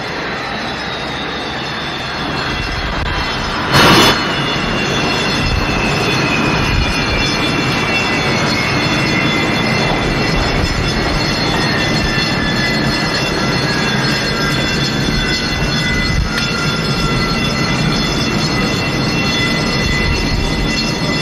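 Airliner jet engines winding down after shutdown at the gate: a steady rumble and hiss with a turbine whine that falls slowly in pitch over about fourteen seconds, beside other steady whining tones. A brief loud burst of noise about four seconds in.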